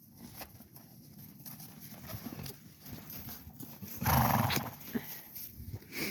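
A horse galloping loose, its hoofbeats coming as a run of soft thuds, with one loud burst of rushing noise about four seconds in.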